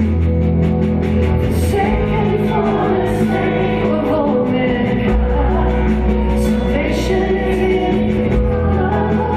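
Live worship band playing: electric and acoustic guitars, keyboard and bass under voices singing. The low notes are held and change every few seconds.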